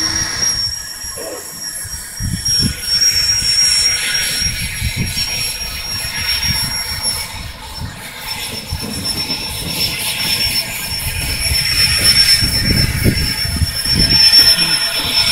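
A cog railway steam locomotive backing up: steam hissing over an uneven low rumble, with a steady high whine that cuts off near the end.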